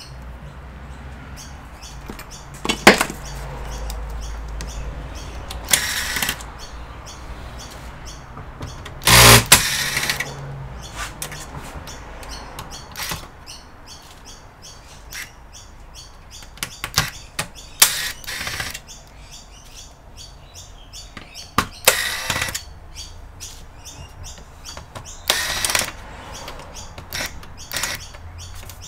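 Irregular clicks, knocks and scraping of hands and tools working on an all-in-one computer's plastic case and parts, with the loudest knocks about three and nine seconds in.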